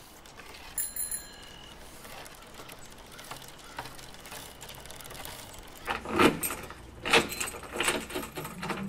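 A bicycle bell rings twice in quick succession about a second in, over faint outdoor ambience. From about six seconds a run of sharp knocks and clicks follows, the loudest around six seconds in.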